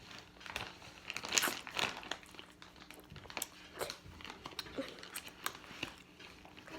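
Irregular crinkling and crunching while food is handled and eaten, made up of scattered small clicks and crackles, loudest about one and a half seconds in.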